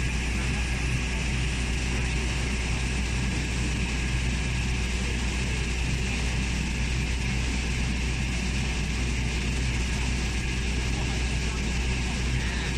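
Fire truck's engine running its water pump, a steady low drone, with the hiss of water spraying from the fire robot's nozzle over it.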